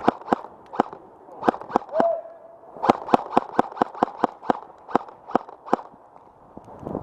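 Airsoft guns firing single shots: a few scattered shots in the first two seconds, then a quicker run of about fifteen shots at roughly four a second, stopping about a second before the end.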